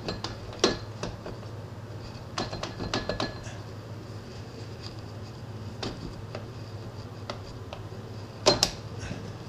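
Metal lathe with a steady low hum under scattered clicks and metallic knocks, the loudest a double knock near the end.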